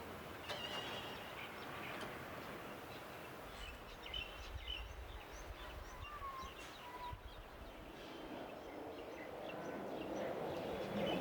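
Night-time city street ambience: a steady wash of distant urban noise with scattered short chirps and calls over it. A low rumble comes in during the middle, and the noise swells toward the end.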